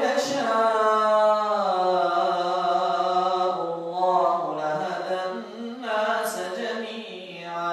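An imam chanting Quranic recitation in Arabic, one male voice drawing out long, slowly gliding melodic notes, with a short pause for breath a little after three seconds in and another near the end.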